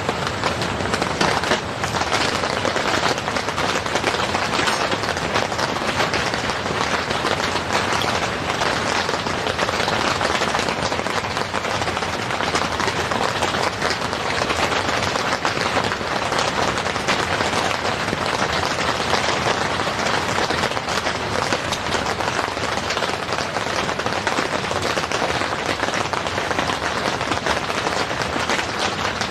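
Heavy rain falling steadily on the tent, a dense, even crackle of countless drops without a break.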